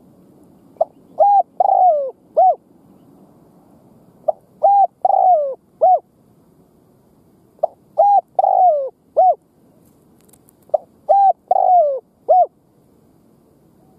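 Spotted dove singing its cooing song four times, about every three and a half seconds. Each phrase is a brief note, a short coo, a longer coo that falls away, and a last short coo.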